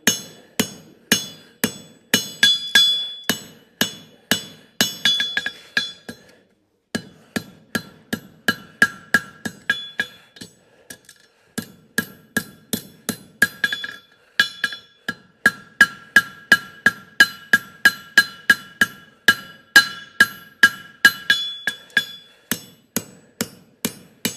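Farrier's hammer striking a hot steel horseshoe heel on an anvil, about two to three blows a second, each with a bright ringing tone: the heel being drawn out into a triangular jar calk. The hammering breaks off briefly about six and eleven seconds in.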